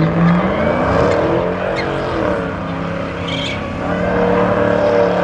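Ford Mustang engine held at high revs, its pitch rising and falling as the car spins donuts, with the rear tyres spinning and burning on the pavement.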